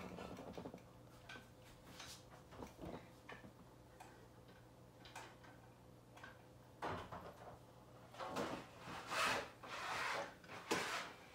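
Scattered light knocks and clicks of household objects being handled, louder and closer together in the last few seconds, over a faint steady low hum.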